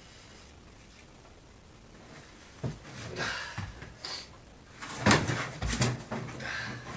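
Knocks, clunks and scraping as the sheet-metal cabinet of an old refrigerator, partly cut apart, is handled: a single thump about two and a half seconds in, then louder clunks near five seconds.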